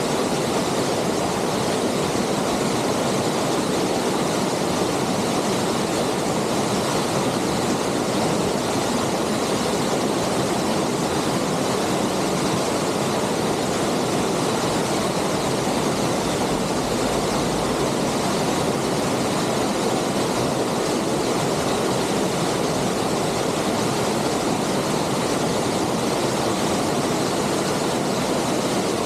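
A waterfall pouring steadily: an even, unbroken rush of falling water.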